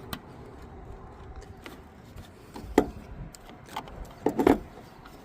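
Scattered light clicks and knocks of a 10 mm bolt and hand tool being fitted to the lower end of a car's negative battery cable, with a louder knock near the middle and a quick run of them near the end.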